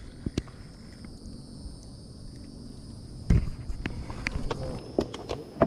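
Knocks and taps on a small boat as a small hooked panfish is swung in and handled, the loudest a heavy thump about three seconds in. A steady high insect drone runs underneath.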